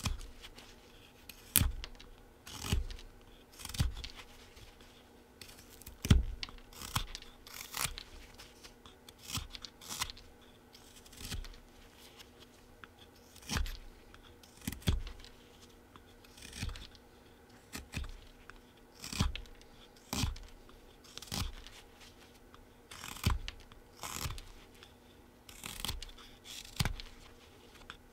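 Folding carving knife slicing shavings off a small wooden blank by hand, about one short scraping cut a second, with some two dozen cuts in all.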